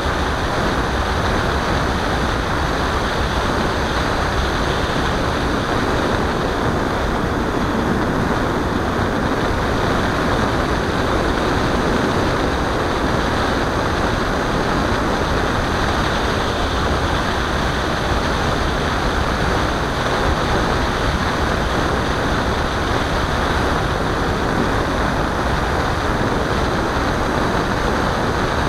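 Steady rushing noise of airflow and propeller picked up by the onboard camera of a model aircraft in flight. It stays even throughout, with no clear pitch or changes.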